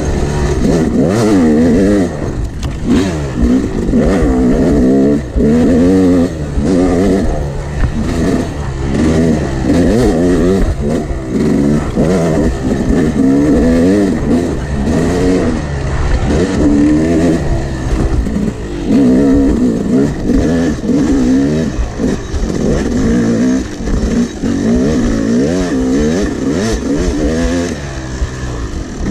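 Yamaha YZ250X two-stroke single-cylinder dirt bike engine revving hard and easing off again and again while being ridden, its pitch rising and falling every second or two with throttle and gear changes.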